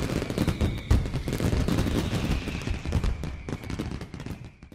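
A rapid, irregular run of sharp pops and crackles, with a faint high tone sliding slowly down behind them, thinning and fading out near the end.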